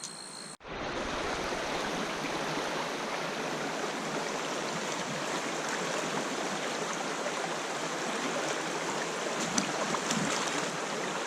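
Trout stream running: a steady rush of flowing water that starts abruptly about half a second in.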